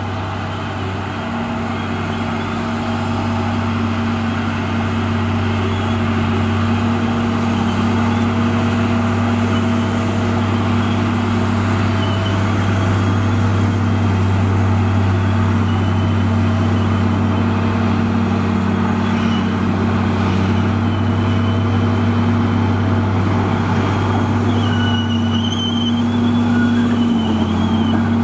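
Komatsu D58E bulldozer's diesel engine running steadily under load while it pushes and spreads soil, with a faint high squeal near the end.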